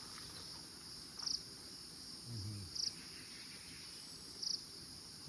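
Forest insects calling: a steady high-pitched drone with a louder pulsed chirp repeating about every one and a half seconds.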